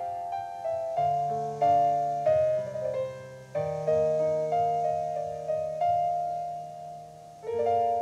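Solo piano playing slow chords, each struck and left to ring and fade before the next, with a louder chord struck near the end.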